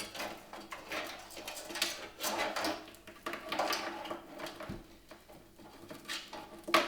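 Irregular rustling, clicking and rattling of cables and parts being pulled out of a PC case by hand.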